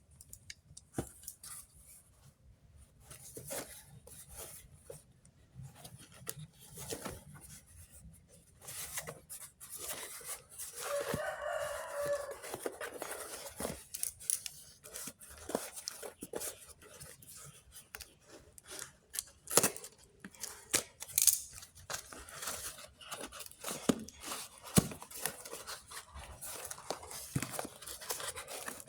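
A package being opened by hand: snips, tearing and rustling with many sharp clicks, busier from about nine seconds in. A short pitched call is heard about eleven seconds in.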